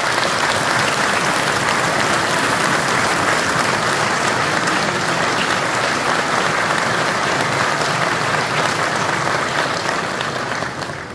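Large audience applauding steadily, the applause dying away near the end.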